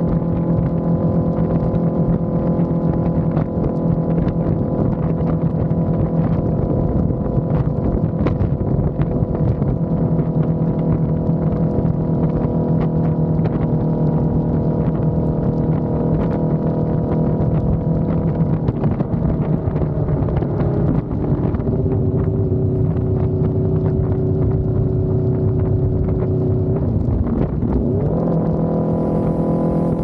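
2019 Aprilia RSV4 1100 Factory's V4 engine through a Racefit exhaust, running under steady throttle on the move. About two-thirds of the way through the pitch falls to a lower steady note. Near the end it dips and climbs back up as the rider gets on the throttle again.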